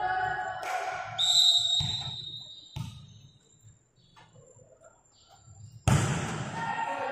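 Indoor volleyball game sounds. Crowd voices fade early on, and a short, high referee's whistle blows about a second in among a few sharp ball thumps. After a quiet stretch, a loud ball hit comes near the end, followed by crowd noise.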